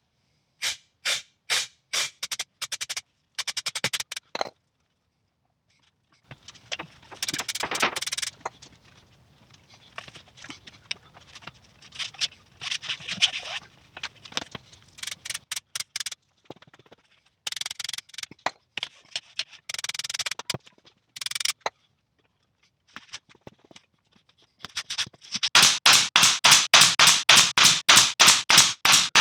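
Hand work on headlining fabric over a convertible hood frame: scattered clicks, then long stretches of rustling and scraping, and near the end a fast, even run of sharp taps, about five a second.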